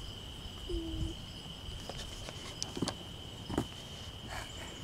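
Insects droning in one steady high note, with a few sharp snaps of footsteps on dry twigs and pine needles.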